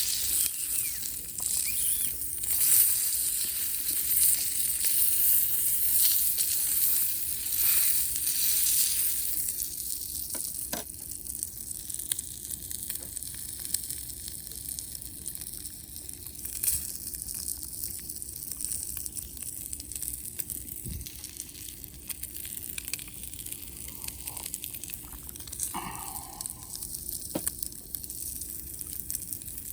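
Wood campfire crackling and hissing, louder for the first nine seconds or so, then quieter with scattered pops.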